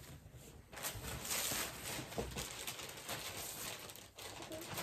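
Plastic packaging bag crinkling and rustling as clothing is handled and unwrapped, starting about a second in.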